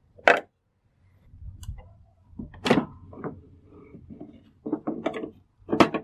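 Hard plastic parts of a DeLonghi Magnifica coffee machine being handled: sharp clicks and knocks, the loudest just after the start, near the middle and near the end, with a quick run of smaller clicks and softer rattles and scrapes between.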